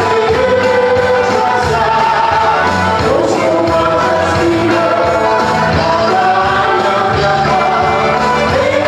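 Worship song in full swing: voices singing over amplified band music with a bass line and a steady beat.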